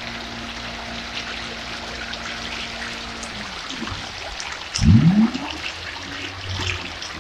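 Water splashing and churning as densely crowded red tilapia thrash at the surface of a biofloc tank. A faint steady hum fades out about halfway, and a loud low sound sliding in pitch comes about five seconds in.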